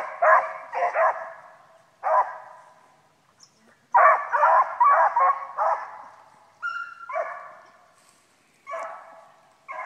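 Beagles baying as they run a cottontail rabbit's track, a string of barks in bunches: a quick run at the start, another about four seconds in, and scattered barks with short pauses between.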